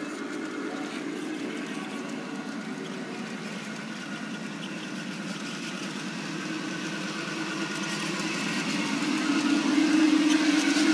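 A train's engine running steadily as it approaches, growing louder over the last few seconds.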